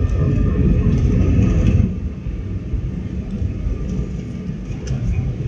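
Airbus airliner cabin noise heard at a window seat beside the engine: a steady low rumble of engine and airflow during the descent to land, with a faint engine hum over it. The whole sound eases down a little about two seconds in.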